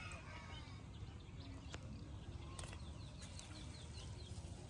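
Small birds chirping in short repeated notes over a low steady outdoor rumble, with a couple of sharp clicks near the middle.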